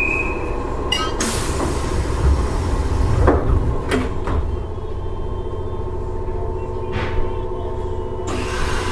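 Nishitetsu 5000 series electric train: a steady low rumble with a constant hum from its equipment, broken by two stretches of hiss and a few knocks.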